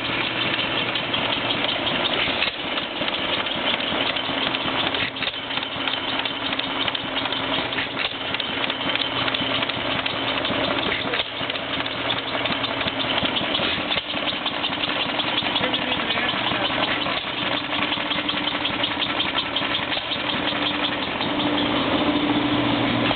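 Antique hit-and-miss stationary gas engines running together in a steady mechanical clatter, with a faint knock about every three seconds.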